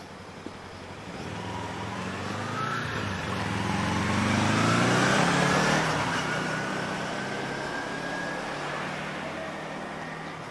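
A motor vehicle passing close by on the street. Its engine and tyre noise grow louder, peak about five seconds in, then fade away.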